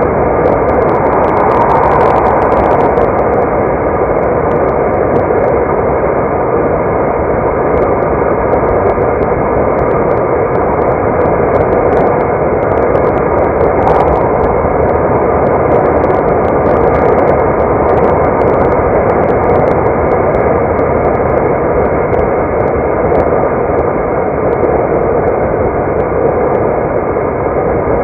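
Steady road noise of a car being driven: an even rush of tyres and engine with no changes in level.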